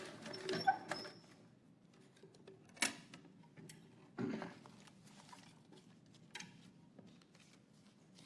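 Wooden lottery drum being handled and a paper slip drawn from it: a few scattered clicks and knocks, the loudest about three seconds in and just after four seconds, with faint rustling between.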